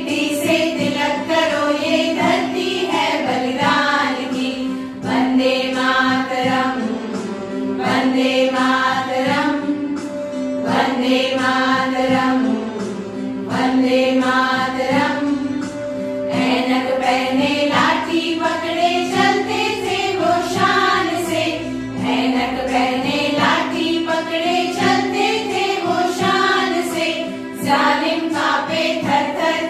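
A women's choir singing an Indian patriotic song in unison, phrase after phrase, over a steady held keyboard note.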